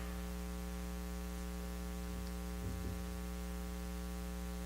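Steady electrical mains hum, an unchanging buzz with many overtones, in the sound system's recording.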